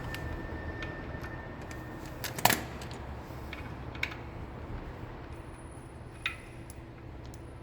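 Scattered metal clicks and taps from hand tools and bolts being worked during disassembly of a motorcycle's rear foot peg assembly. The sharpest knock comes about two and a half seconds in, with lighter clicks around four and six seconds.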